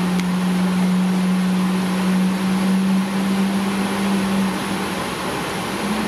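Boeing 777-300ER flight-deck noise during the left engine's start: a steady low hum over a constant rush of air. The hum fades out about four and a half seconds in.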